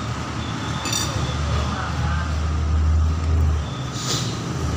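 Street traffic: a passing motor vehicle's low engine rumble swells from about a second in, dips briefly near the end, then returns. A light clink sounds about a second in.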